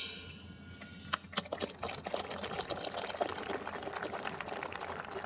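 Spectators applauding: a dense, irregular patter of claps that builds up about a second in, after the ringing tail of a cymbal crash fades.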